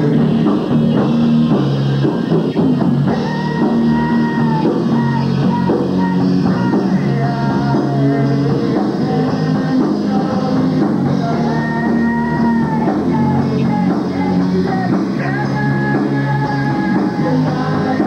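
Live rock band playing loud: electric guitar, bass guitar and drum kit, with a singer's long held notes over the riff.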